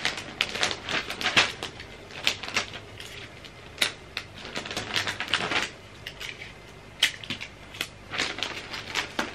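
Wrapping paper crinkling and rustling in short, irregular bursts as a gift is folded and wrapped by hand, with a few sharper snaps of clear tape pulled off a roll.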